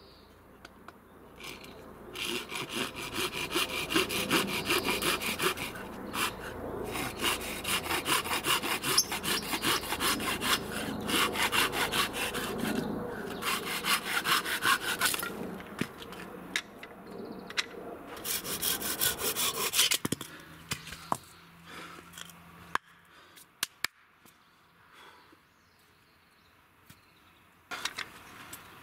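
Hand saw cutting through a thin board of scrap lumber, in three runs of quick back-and-forth strokes with short pauses between. A few light knocks follow near the end as the sawing stops.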